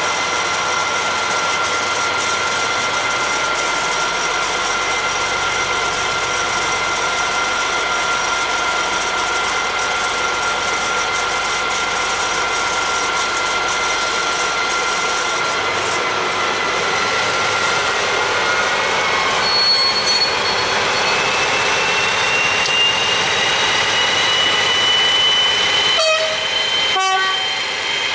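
Pair of DB class 218 diesel-hydraulic locomotives running with a steady engine roar and a high whistling whine. Over the last ten seconds the whine rises slowly in pitch as the engines throttle up to pull the train away.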